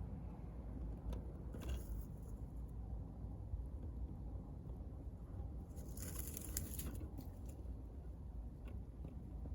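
Wood fire crackling, with scattered sharp pops and a denser spell of crackling about six seconds in, over a low steady rumble.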